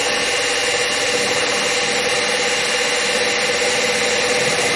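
Harbor Freight X2 mini mill's spindle motor running at a steady speed, with a constant whine over an even mechanical hiss.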